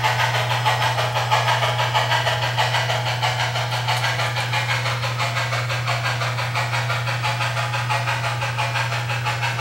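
Steam-locomotive chuffing from the Soundtraxx sound decoder of an HO-scale model L&N 2-8-4, played through the model's small speaker as a quick, even rhythm of about five chuffs a second, over a steady low hum.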